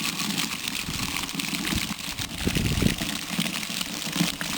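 Water gushing out of an open underground irrigation line where the sprinkler head has been removed, a steady spraying hiss, with a brief low rumble about two and a half seconds in.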